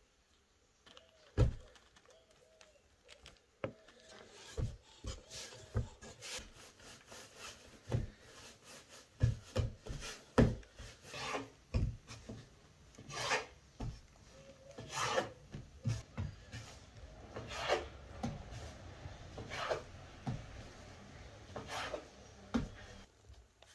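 Bread dough being handled and cut with a kitchen knife on a floured wooden board: irregular knocks and thumps on the wood, with several scraping strokes of the blade across the board in the second half.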